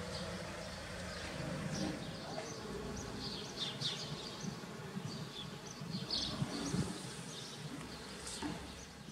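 Outdoor ambience of small birds chirping: many short, scattered high chirps, thickest in the second half, over a low steady rumble.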